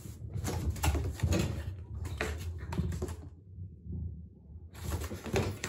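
Irregular light knocks, taps and scuffs of a small ball and a cat's paws on a wooden floor during a game of catch, in two busy stretches with a quieter gap just before the end.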